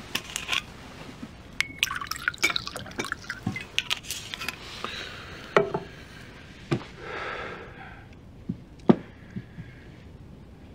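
Glass clinking and knocking on a table, with liquid pouring into a whiskey tumbler twice, each pour lasting about a second.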